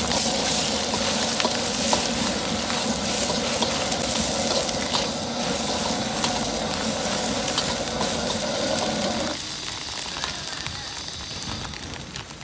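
Egg frying in hot oil in a steel wok, a loud steady sizzle with scrapes and clicks of a metal wok spatula against the wok. A lower rumble beneath the sizzle drops away about nine seconds in.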